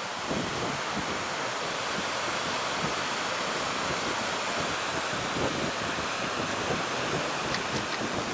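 Steady rushing of ocean surf mixed with wind on the microphone, with a few faint clicks near the end.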